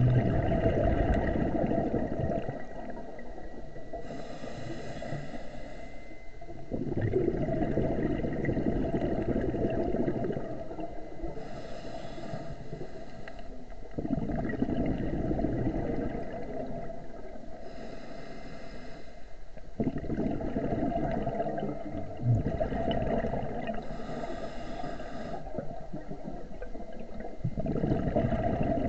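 A scuba diver breathing through a regulator: a hiss of inhalation every six to seven seconds, each followed by a louder, longer rumble and gurgle of exhaled bubbles. One brief knock comes about two-thirds of the way through.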